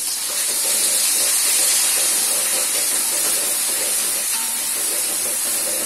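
Ground spice paste frying in hot oil in a steel wok: a loud, steady sizzle, stirred with a slotted metal spatula.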